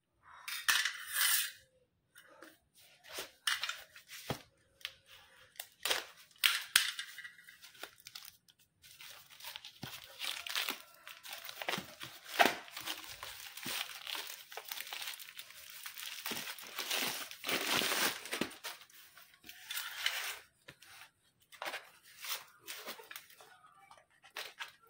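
Plastic parcel wrap and packing tape being torn and crinkled off by hand, in irregular bursts with a few sharp clicks. Near the end, a utility knife is used to cut into the cardboard wrapping.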